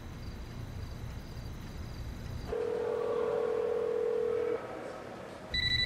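Telephone ringback tone: a single steady low tone held for about two seconds and then stopping, the ring a caller hears while waiting for an answer. About a second later a higher electronic phone ring starts.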